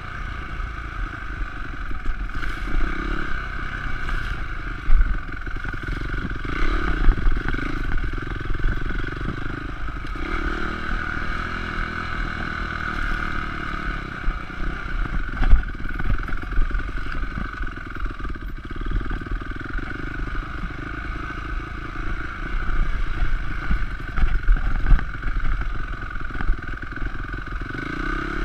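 Honda CRF250X dirt bike's four-stroke single-cylinder engine running while ridden over rough trail, the revs rising and falling with the throttle. Frequent knocks and rattles from the bike over the uneven ground run through it.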